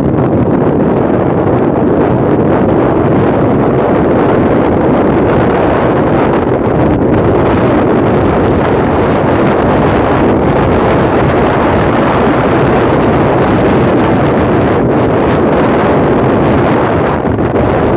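Steady wind buffeting the microphone of a phone on a moving Kymco Like 125 scooter, with the scooter's running and road noise blended in underneath.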